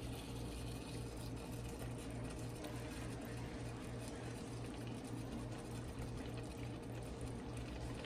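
Chicken pieces cooking in their juices in a large aluminium pot, a steady bubbling hiss, with a wooden spoon stirring through them. A steady low hum runs underneath.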